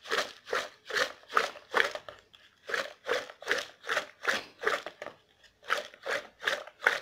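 Cut lemon pieces in salt, turmeric and lemon juice shaken in a plastic tub, a wet rattle with each shake, about two shakes a second with a couple of short pauses. The shaking mixes the lemon pickle so the salt dissolves and the turmeric coats the pieces.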